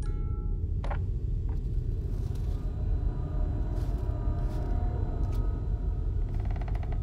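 A steady low rumbling drone of a horror-film soundscape. The last note of a music box rings out at the start, a couple of sharp clicks follow, and a fast run of even ticks comes near the end.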